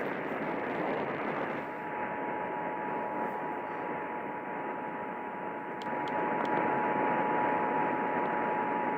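Emergency Alert System attention signal: a steady two-tone sound that starts about a second and a half in and holds to the end. It comes through heavy static hiss from a distant radio station and marks the start of an emergency alert broadcast.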